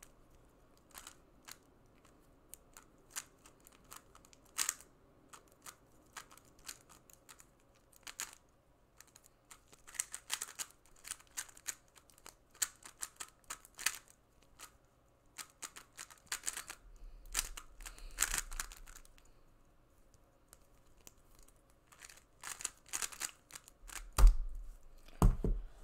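3x3 speedcube being turned fast by hand: quick runs of plastic clicking and clacking layer turns, broken by short pauses. Two loud thumps come near the end as the cube is set down and the hands hit the stackmat timer.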